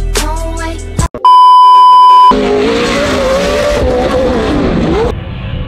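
Hip-hop music cut off after about a second by a loud, steady one-second bleep tone. Then a Pro 4 short-course off-road race truck's engine runs on track, its pitch rising and falling as it revs, until it gives way to quieter outdoor background near the end.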